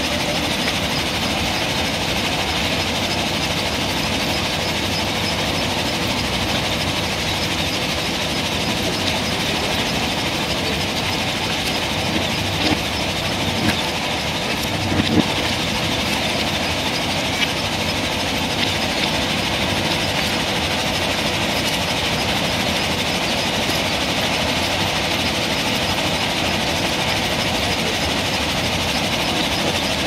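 JCB 3DX backhoe loader's diesel engine running steadily under load while its backhoe digs sand, a constant mechanical din, with a few short knocks about halfway through.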